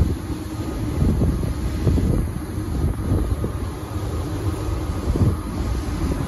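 DB Class 425 electric multiple unit pulling out of the station and passing close by: a steady rumble of wheels on rail and running gear, with uneven low buffeting throughout.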